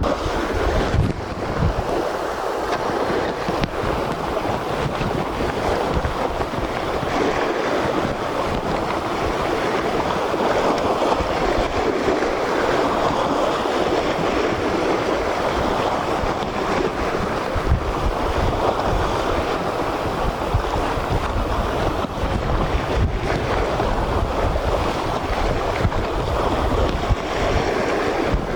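Sea surf washing steadily against the shore, with wind buffeting the microphone in gusts.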